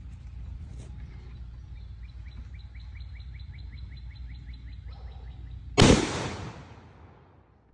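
A single .50 BMG rifle shot, a 750-grain ball round, about six seconds in, its report echoing and fading over a second or so. Before it a bird sings a fast trill of repeated chirps, about five a second.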